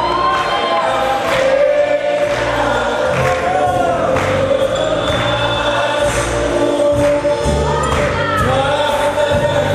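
A song playing loudly, with singing voices over a bass line and a steady beat.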